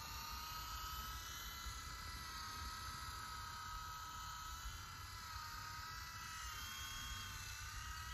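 Small electric RC helicopter hovering and flying, its motor and rotors giving a steady high whine whose pitch wavers slightly as the throttle changes.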